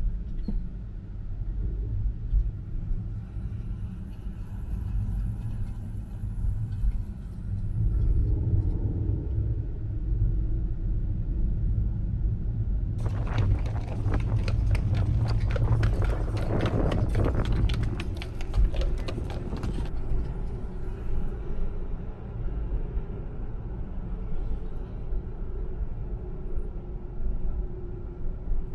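Car driving with a steady low road rumble. For about seven seconds near the middle, a horse-drawn tour wagon passes close by, with the horse's hooves clip-clopping and the wagon clattering in a quick run of sharp clicks.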